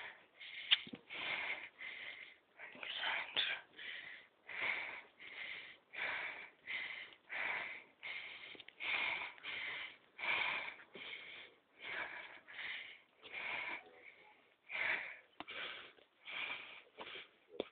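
Heavy, rhythmic breathing of a person out of breath from climbing stairs: quick breaths in and out, about two a second.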